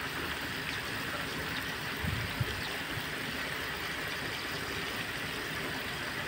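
Steady rush of running water, with a couple of low thumps about two seconds in.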